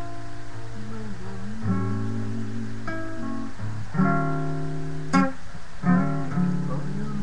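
Solo acoustic guitar: single plucked notes, some bent up and down in pitch, over a held low bass note, with a couple of chords strummed about four and five seconds in.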